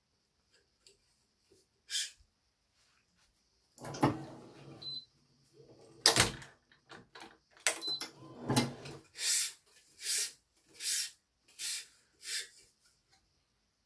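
Badminton racket stringing work with BG80 string: a few heavy clunks, then five quick swishes less than a second apart, typical of string being drawn through the frame.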